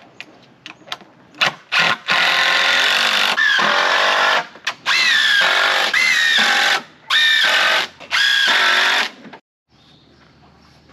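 Cordless power driver running in about half a dozen bursts, some short and some one to two seconds long, as it drives screws into the wooden roof framing. Its pitch dips and rises within the bursts.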